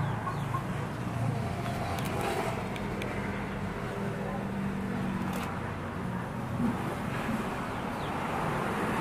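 A motor hums steadily at a low pitch over outdoor background noise, fading somewhat as it goes on, with a few faint clicks.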